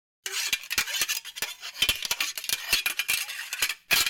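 Metal scraping and clinking in quick, irregular strokes, with a louder cluster near the end.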